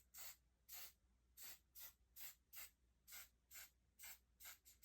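Hairspray spritzed in a rapid series of short hissing bursts, about two to three a second.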